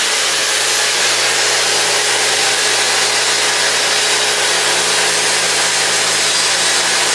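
Festool plunge-cut circular saw running at full speed and ripping through a pine board, a steady loud cutting noise with a constant motor hum underneath.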